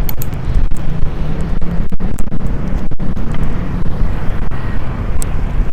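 Loud, steady low rumble of wind buffeting the microphone, the kind of noise picked up outdoors or on a moving ride.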